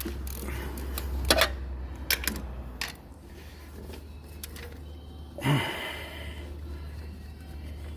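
Metal hand tools clicking and clinking against the engine as the timing chain guide's Allen key bolts are worked loose: a few sharp clicks in the first two and a half seconds, then one short louder sound about five and a half seconds in, over a low steady hum.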